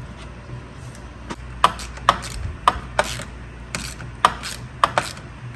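Sharp plastic knocks and clicks, about eight spread unevenly, as the Jeep Wrangler's plastic radiator fan shroud assembly is worked loose and lifted out.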